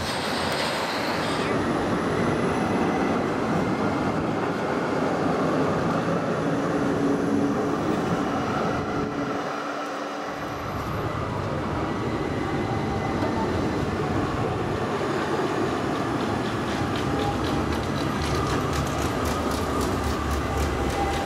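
Trams running along street tracks, a steady rumble of wheels and motors mixed with city traffic. It holds a brief steady tone about seven seconds in and dips briefly about ten seconds in.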